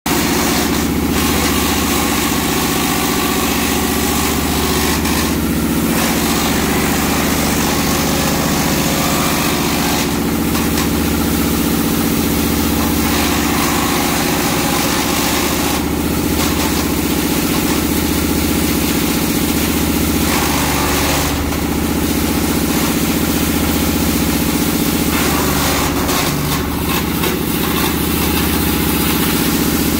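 Engine-driven wood shredder (chipper) running steadily while wooden slats are fed in and chipped. A crunching burst of chipping comes several times, roughly every five seconds. The engine note dips briefly twice under the load.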